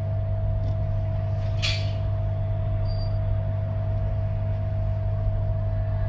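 Steady low hum with a faint constant tone above it, and a brief soft scrape about a second and a half in.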